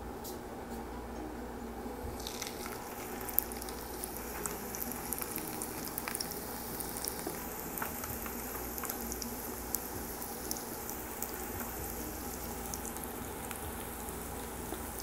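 Oil sizzling in a frying pan as stuffed murtabak parcels are laid in to shallow-fry, with scattered sharp crackles of spitting oil that grow busier a couple of seconds in.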